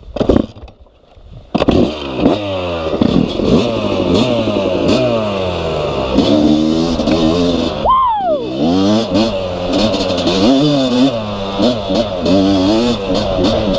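Yamaha YZ250 single-cylinder two-stroke dirt bike engine catching about a second and a half in after stalling, then revving up and down as the bike rides off, with a sharp drop in revs about eight seconds in.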